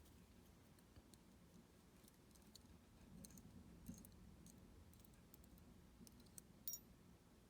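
Near silence broken by a few faint, sharp clicks of small metal lock parts being handled as the lock is taken apart.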